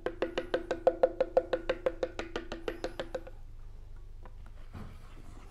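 Rapid, even knocking of a scraper against an upturned clear plastic chocolate mould, about six knocks a second with a ringing pitch, stopping a little over three seconds in. The knocking shakes the excess milk chocolate out of the mould to leave thin shells.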